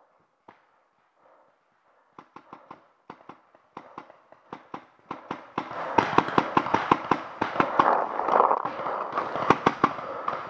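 Paintball markers firing, as sharp pops. A few single shots come about two seconds in, then the shots grow faster and louder until rapid fire from about halfway, over a rustling haze.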